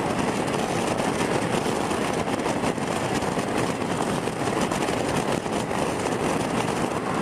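Steady rushing wind and road noise from a motorcycle riding along at speed, with no clear engine note.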